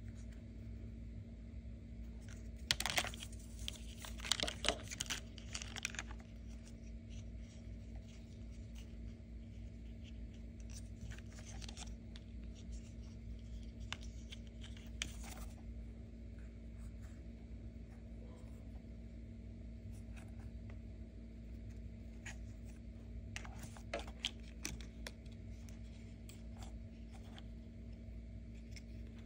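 Plastic toy action figures being handled: scattered clicks, taps and scrapes, busiest a few seconds in and again near the end, over a steady low hum.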